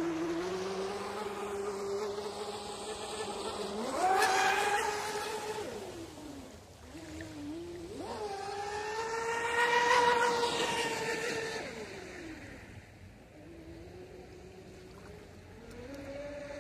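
Twin electric motors of a Minicat 820 EP RC catamaran whining at speed on the water. The whine jumps up in pitch with the throttle about four seconds in and again at eight seconds, is loudest as the boat passes around ten seconds in, then fades as it runs off and rises again near the end.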